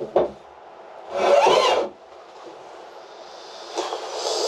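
An object knocked down and then scraped across wood, with a short squeak that rises and falls during the scrape. A rushing noise builds near the end.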